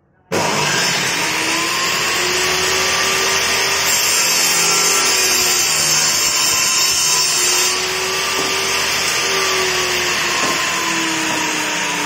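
Stanley table saw's motor switched on, starting suddenly and running loudly at full speed. A board is fed through the spinning blade with a push block, and the sound drops slightly in pitch and brightness near eight seconds as the cut ends.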